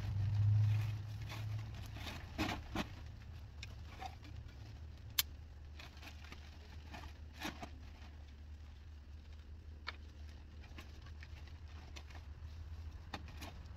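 Black plastic trash bag rustling and pieces of old roofing debris knocking together as they are bagged, in scattered crackles and clicks, the sharpest about five seconds in. A steady low rumble runs underneath, strongest in the first two seconds.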